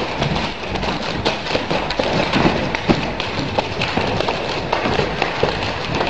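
A pair of nunchaku being spun, struck and caught: a quick, irregular run of taps and thuds.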